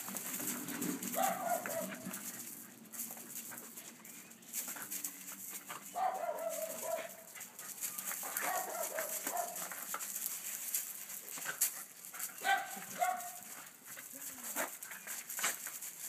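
Shiba Inu dogs giving short, high-pitched cries several times as they crowd around a person, some of the cries falling in pitch.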